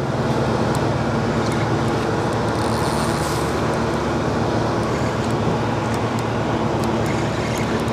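A steady low mechanical hum holding one even pitch, over a constant rushing noise.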